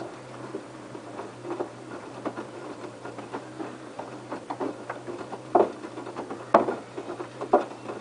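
LG F1222TD direct-drive front-loading washing machine in its main wash: the drum turns the wet laundry, and the water sloshes and splashes in irregular slaps over a steady low hum. The slaps grow stronger in the second half, landing about once a second.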